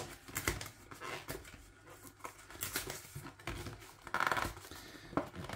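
Cardboard ready-meal box being prised open by hand: scattered scrapes and crinkles of card, with a louder rip about four seconds in. The glued end flaps are stuck fast.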